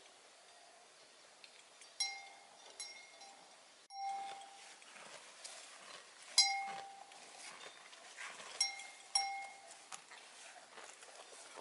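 Clear, ringing metallic clinks, six of them at uneven intervals, each a single bright tone that fades within about half a second; the loudest comes about six seconds in.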